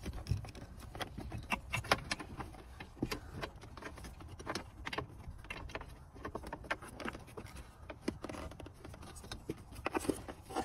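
Wiring harness and plastic connectors being pushed and worked through a gap behind a truck's dashboard by hand: faint, scattered clicks and rustles, irregular throughout.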